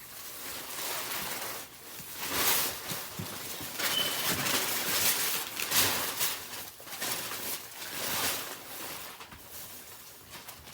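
Paper and packaging rustling and crinkling in irregular surges, as a wrapped gift box is handled and opened.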